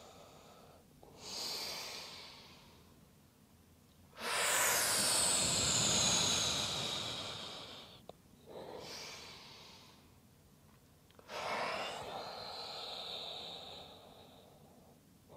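A woman breathing slowly and audibly in and out, four breaths in all. The longest and loudest starts about four seconds in and lasts some four seconds. These are deep breaths paced with a cat–cow yoga movement.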